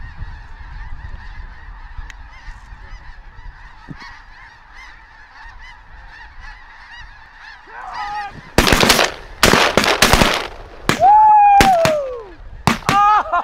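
A huge flock of snow geese calling overhead, a dense, steady din of overlapping honks. About eight and a half seconds in, a quick volley of a dozen or so shotgun blasts breaks out as several hunters fire into the flock at once, with the geese still calling between the shots.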